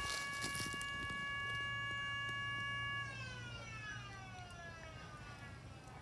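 Federal Signal Model 2 electromechanical siren sounding a steady tone, then winding down about three seconds in, its pitch falling slowly as the rotor coasts to a stop.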